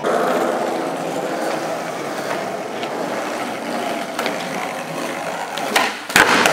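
Skateboard wheels rolling steadily over a smooth indoor floor, then near the end the sharp pop of the tail and the clack of the board landing, on a switch varial heelflip.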